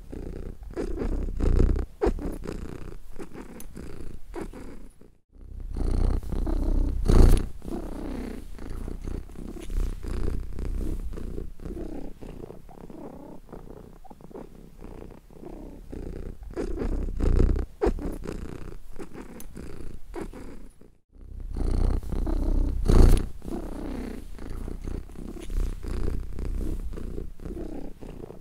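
Domestic cat purring contentedly, a low steady purr that swells and fades in slow waves with its breathing. There are two brief silent gaps, about five seconds in and again about twenty-one seconds in.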